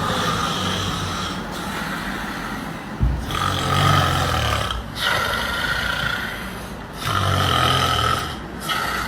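A person snoring in deep sleep, in a slow repeating breath cycle: two loud buzzing snores, a little after three seconds in and about seven seconds in, with quieter breathing between.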